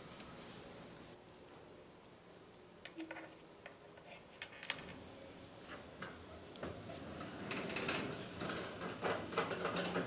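A set of keys jangling and clicking in short, scattered bursts, louder and busier near the end.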